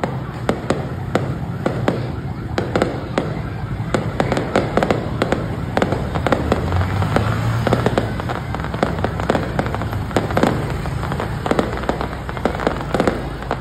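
Aerial fireworks bursting in quick succession: a dense run of sharp crackling pops, many a second, over a steady low rumble.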